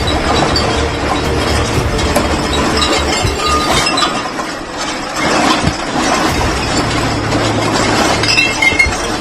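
Glass and household objects clinking and rattling as a building shakes in an earthquake, over a low rumble in the first few seconds.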